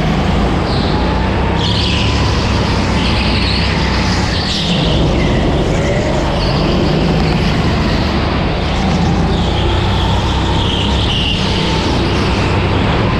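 Go-kart engine heard onboard, running hard throughout, its pitch rising and falling as the throttle goes on and off.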